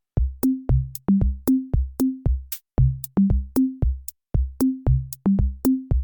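Electronic backing music: an even drum-machine beat, about three hits a second, each with a short low bass note.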